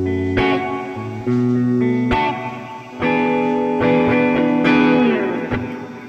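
Background music: a guitar-led instrumental passage of a song between sung lines, with a new chord struck about every second.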